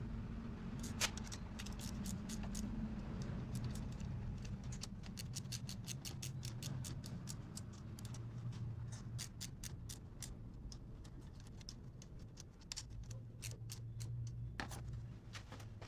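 A run of light, quick clicks and ticks over a low steady hum, thickest in the middle, with one sharper knock about a second in.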